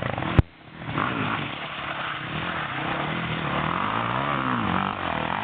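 Trail bike engines running and revving, their pitch rising and falling, with a sharp click about half a second in.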